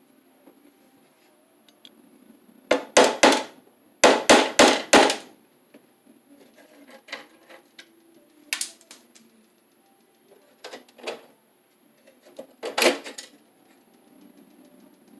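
Sharp metal-on-metal strikes on the bottom of a steel breaker panel, a knockout being knocked out for a new cable entry: three quick blows, then four more, then scattered single taps and a short hard cluster near the end.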